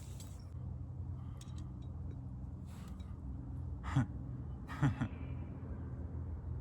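Steady low hum with faint scattered clicks of handling, and two short breathy vocal sounds from a man about four and five seconds in.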